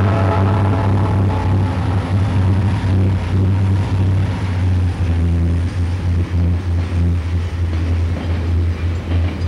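Southern Pacific freight diesels, led by an EMD SD40T-2 with its turbocharged 16-cylinder engine, running past with a steady low engine drone and rumble. A train horn note dies away just at the start, and the freight cars roll past toward the end.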